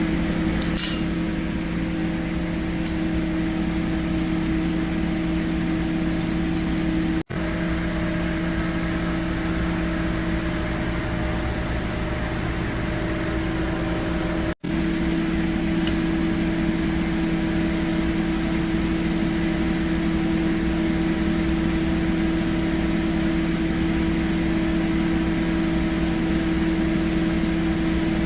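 A kitchen appliance's fan motor running with a steady hum. A short light clink comes about a second in, and the sound drops out for an instant twice.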